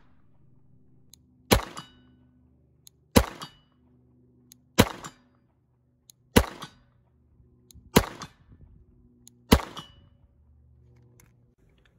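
Six slow, evenly spaced shots from a Glock 44 pistol in .22 Long Rifle, about one every second and a half, each a sharp crack with a short echo.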